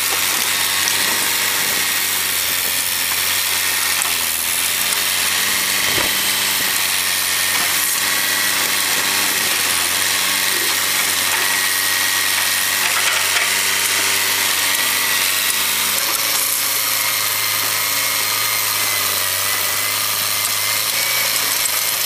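Diesel engine of a Caterpillar track loader running steadily under work, its note changing about 16 seconds in, while the loader's bucket crushes a minivan's body. There is one sharp knock about 6 seconds in.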